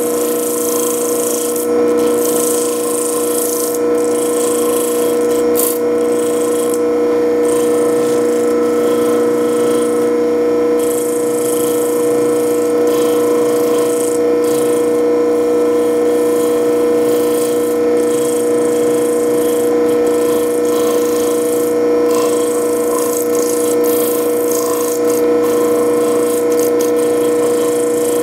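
A black opal on a dop stick being rubbed against the wet face of a spinning disc on a small electric lapidary wheel: a scratchy rubbing hiss that swells and fades as the stone is worked, over the steady hum of the wheel's motor.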